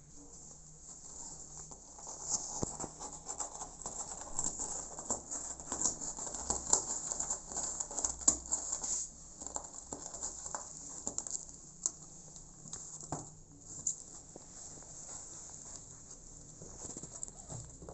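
Kittens and an adult cat shuffling and scratching on the cardboard floor and sides of a box close to the microphone: an irregular run of scrapes, taps and fur rustles, busiest in the middle.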